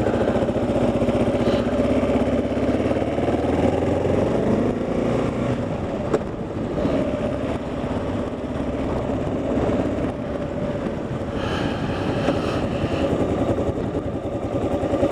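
Kawasaki KLR single-cylinder motorcycle engine running while the bike is ridden, its note shifting a little as the throttle changes.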